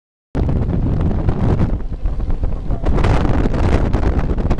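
Wind buffeting the microphone aboard a ski boat running at speed, over the boat's engine and rushing water. It starts abruptly after a fraction of a second of silence.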